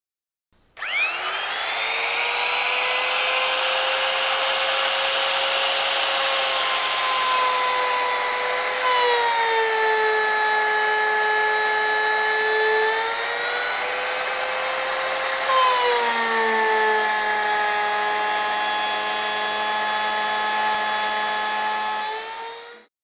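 Electric power tool motor spinning up, running steadily, with its pitch sagging twice as it takes load, then stopping abruptly near the end.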